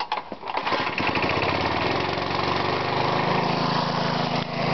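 Homemade air compressor built from Briggs & Stratton lawnmower engine parts starting up about half a second in, then running steadily at a fast, even beat, with a brief drop near the end.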